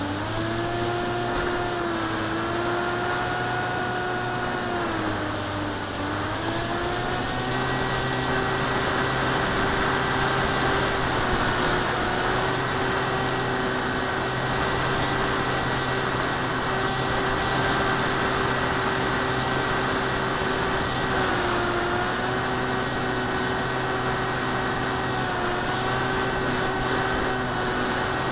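Electric motor and propeller of a radio-controlled model plane, heard from its onboard camera: a steady whine that sags and recovers twice in the first seconds as the throttle eases. It then climbs to a higher, held pitch and dips briefly twice more, over a constant rush of airflow on the microphone.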